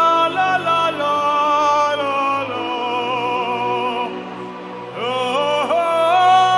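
Gospel worship music: a solo voice sings slow, long-held notes that slide from pitch to pitch, over a steady low accompaniment.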